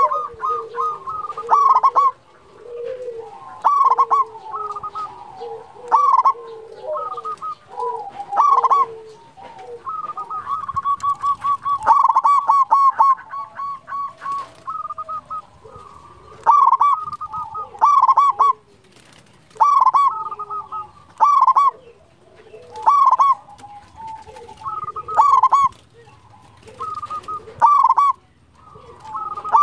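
Zebra dove (perkutut) singing its rolling cooing phrases in short bursts every two seconds or so, with a longer run of rapid notes about ten seconds in.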